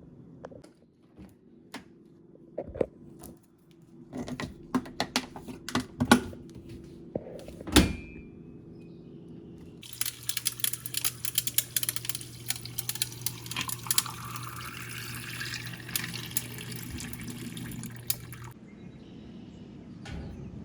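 A series of clicks and knocks, one sharper knock about eight seconds in, then water running from a tap into a container for about eight seconds, its pitch rising as the container fills, before it shuts off.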